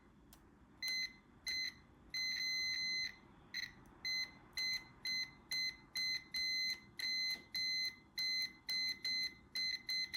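Multimeter continuity beeper sounding in a string of uneven on-off beeps, one steady high tone each, some short and some over half a second, as the brake light switch's plunger is pushed in and let out and its contacts close and open.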